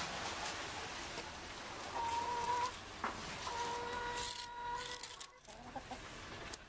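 A chicken calling in two drawn-out, steady notes, the second nearly two seconds long, with a sharp click between them.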